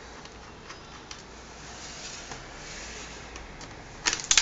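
Small screws and a screwdriver being handled at a laptop's screen bezel: faint rubbing with a few light ticks, then a quick run of sharp clicks near the end.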